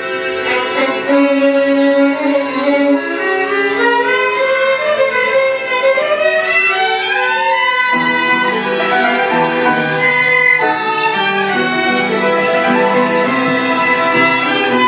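Instrumental music led by a violin: a slow melody with gliding notes over held lower notes.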